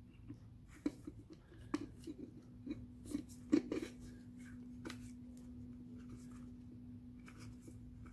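Small clicks and knocks of a diesel fuel filter and its housing being handled and fitted together by hand, mostly in the first four seconds, over a steady low hum.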